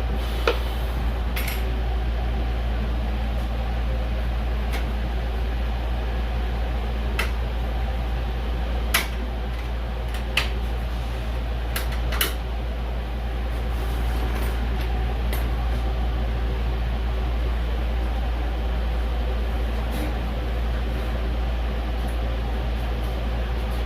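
Steady low hum with light clicks and taps scattered through it, about ten in all, the loudest around nine and twelve seconds in.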